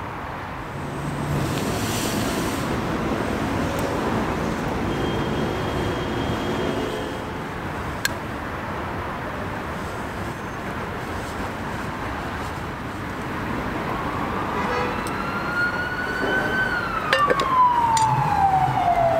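A distant emergency-vehicle siren wailing over a steady background hiss. Its pitch rises slowly and then falls in one long sweep over the last few seconds, where it is the loudest sound.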